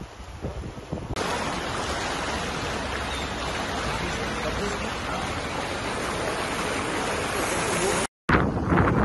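Floodwater rushing across a street: a steady, loud rush of water that starts suddenly about a second in. It cuts out briefly near the end, and the rush that follows is rougher and more uneven.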